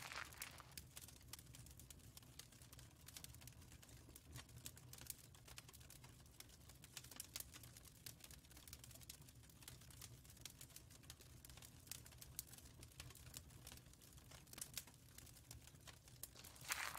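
Near silence: a faint low hum with soft, scattered clicks and crackles.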